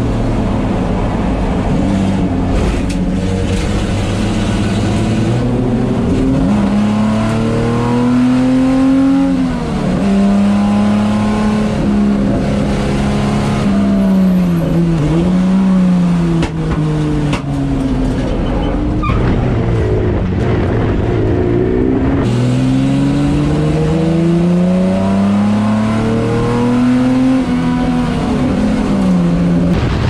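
Onboard sound of a racing Jaguar E-Type's straight-six engine at speed on a circuit: the note climbs through the revs in long sweeps, then drops back at gear changes and when braking for corners, several times over.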